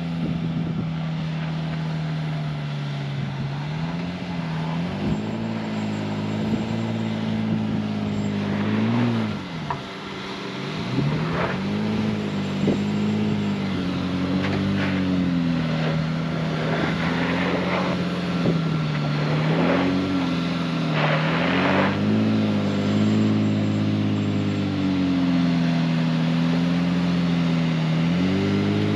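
Honda Ridgeline's 3.5-litre V6 engine working up a steep rutted dirt climb, its pitch rising and falling as the throttle is fed on and eased off, with occasional short knocks and scrapes.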